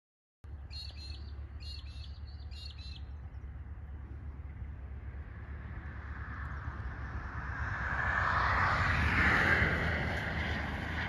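A few quick bird chirps over a steady low rumble, then a passing vehicle's hiss swells to a peak near the end and begins to fade.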